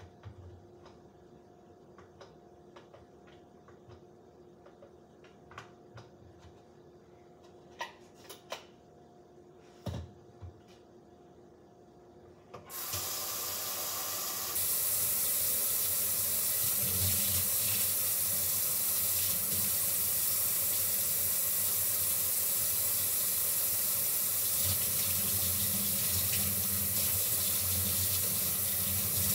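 A few light clinks of dishes, then a kitchen sink faucet is turned on a little before halfway and runs steadily, louder after a couple of seconds, while dishes are washed under it.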